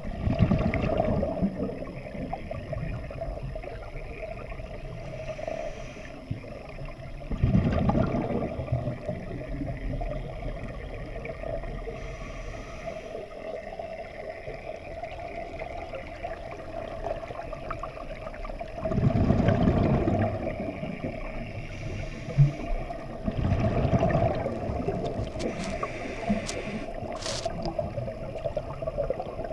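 Scuba diver breathing through a regulator underwater: exhaled bubbles gurgle out in bursts a second or two long, four times, over a steady hum.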